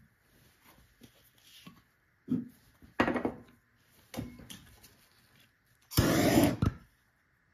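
Jam jar pulse jet being handled and stood on the bench, with knocks and rubbing, then about six seconds in a loud whoosh lasting well under a second as its acetone–methanol fuel is lit. It flares once without catching into a run.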